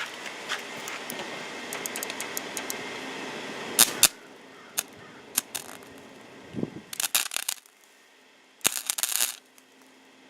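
130 amp MIG wire welder arcing as it welds a dent-puller stud held in grounded insulated pliers: a crackling hiss for the first four seconds, a few sharp cracks, then two short crackling bursts near the end.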